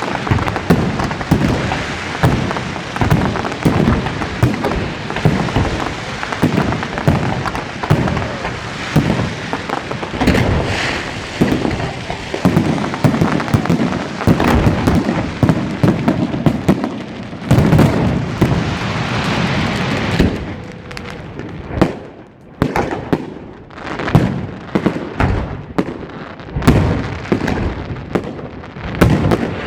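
Fireworks display: a dense barrage of shell bursts and crackle. About two-thirds of the way through it thins out to separate bangs with short gaps between them.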